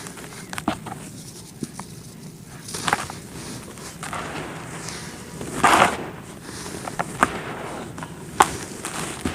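Dry red dirt being crumbled: scattered crisp crackles and small snaps over a soft gritty hiss, with a louder crunch about six seconds in.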